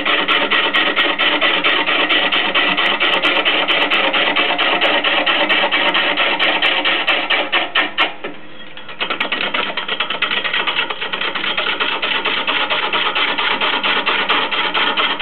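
Turning gouge cutting a large wood blank spinning on a lathe: a continuous, rapid scraping chatter. It drops away briefly about eight seconds in as the tool comes off the wood, then resumes a little softer.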